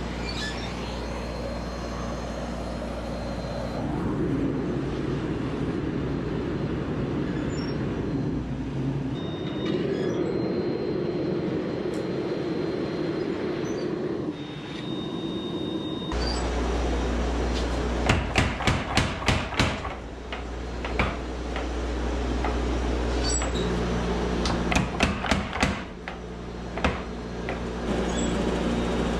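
Gas forge burner running steadily. From about halfway a heavy low hum sets in, then two short runs of rapid, even strikes from a mechanical power hammer, about four or five a second.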